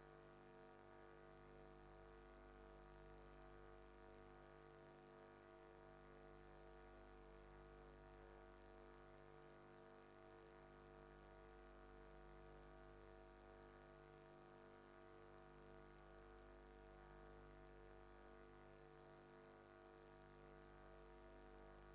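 Near silence: a faint, steady electrical hum with a thin high whine, unchanging throughout.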